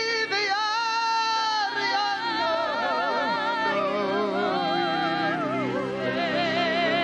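Congregation singing in tongues: many voices at once holding and sliding between overlapping notes with wide vibrato, without words or a set tune, over a steady held low chord.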